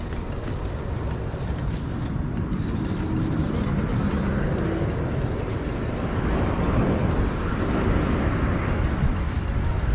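Jet airliner flying low overhead, a broad rumble that grows steadily louder.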